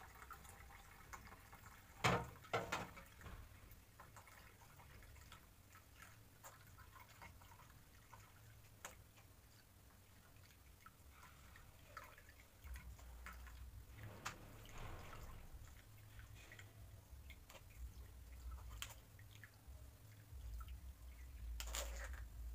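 Blended carrot, orange and ginger juice trickling and dripping through a cloth-lined strainer into a plastic jug. Two sharp knocks about two seconds in are the loudest sounds, with small scattered clicks and another short clatter near the end.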